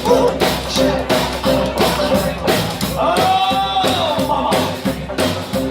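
Rockabilly band playing live with a steady drum beat. About three seconds in, one held note bends up and back down.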